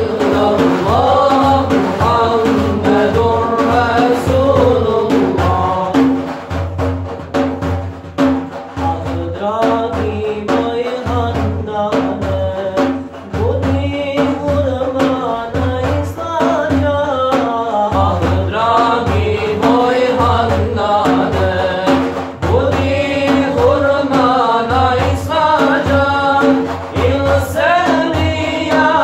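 Male singing of an ilahija, a Bosnian Islamic devotional hymn, with a melodic, chant-like line, accompanied by repeated beats on a large frame drum (def).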